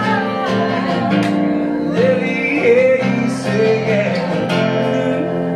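A man singing long, held notes while strumming an acoustic guitar, performed live.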